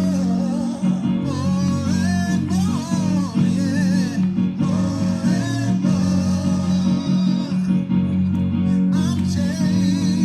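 Music led by guitar over a steady bass line, with a wavering melody line bending in pitch.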